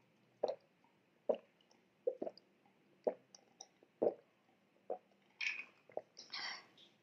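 Swallowing gulps while drinking a glass of iced Sprite, about one gulp a second, six or so in a row. A brief breathy rush follows near the end as the glass comes away from the mouth.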